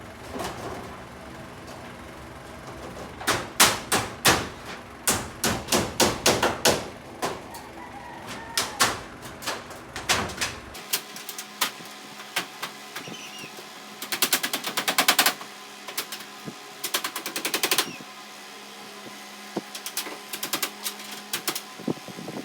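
Hammer blows on corrugated metal roofing, sharp and irregular, often about two a second for several seconds. Later come two short runs of very rapid clattering and a few scattered knocks.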